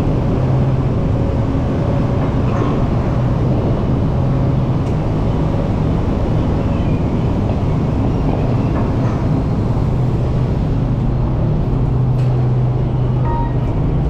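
Steady low drone of a fishing vessel's engines and deck machinery running, with a few faint knocks. Music notes come in near the end.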